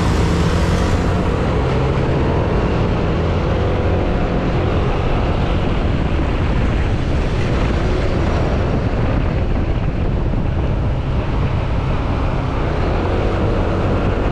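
Motorcycle engine running steadily while riding, mixed with a steady rush of wind on the microphone.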